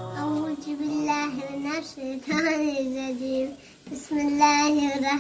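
A young boy singing a gojol, a Bengali Islamic devotional song, in long held notes phrase by phrase, with a short break for breath a little before the end.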